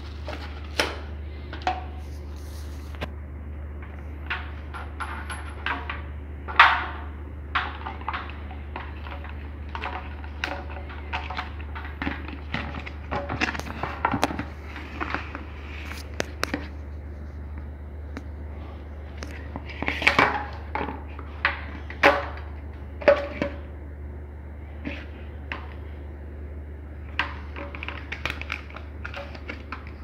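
Scattered clicks, taps and knocks of parts and wiring being handled at a water heater's heating-element flange, a few of them sharper and louder, over a steady low hum.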